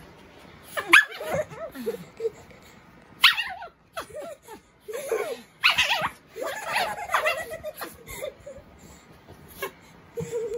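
Small black-and-white dog making short, excited vocal outbursts a second or two apart while play-wrestling with a girl, mixed with a girl's laughter.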